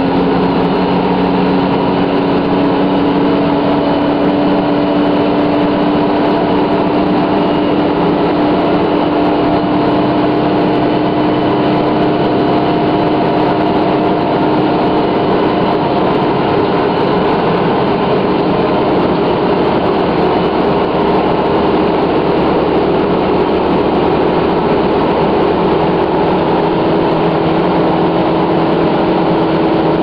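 Detroit Diesel Series 50 inline four-cylinder diesel of an RTS transit bus running steadily under way, its engine note creeping slowly up in pitch as the bus gathers speed.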